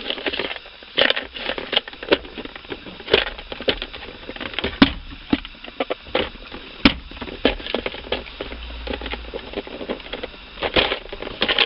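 Irregular plastic clicks, knocks and cracks as a power-window switch is prised out of its housing by hand. The loudest knocks come about 5 and 7 seconds in.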